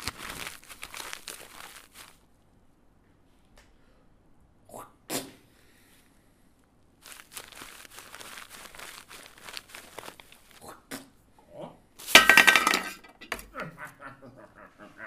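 Homemade foley effects: stretches of rustling noise, a short sharp sound about five seconds in, and a loud ringing clink about twelve seconds in, followed by a few short voice-like sounds.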